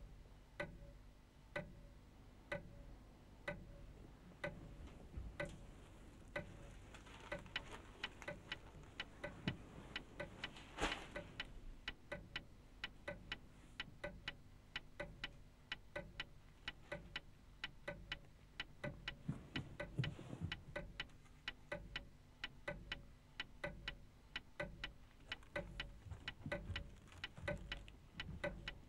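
Sharp clock-like ticking, about one tick a second at first, then thickening from about six seconds in to three or four ticks a second.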